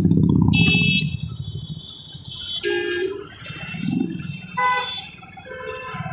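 Several short vehicle horn honks of different pitches in busy street traffic, over a low engine and road rumble from the motorbike being ridden. The rumble is loudest in the first second.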